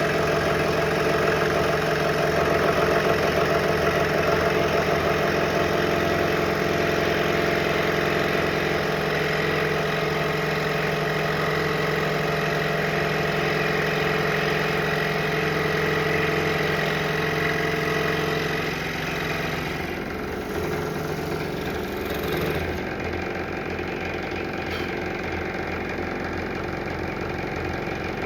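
Scroll saw running steadily, its reciprocating blade cutting through a stacked pack of maple, cherry and walnut panels. The sound grows a little quieter about two-thirds of the way through.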